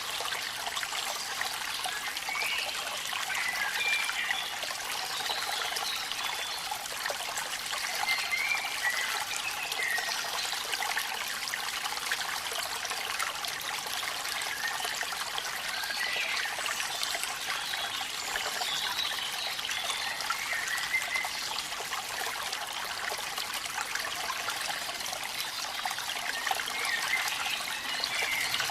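Steady splashing rush of water flowing at a waterfall. Short wavering chirps come and go over it a handful of times.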